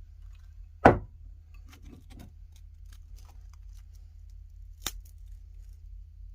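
Knocks and clicks from hard candy being handled at a meat grinder: one loud knock about a second in, a few light clicks, then a sharp click near five seconds, over a steady low hum.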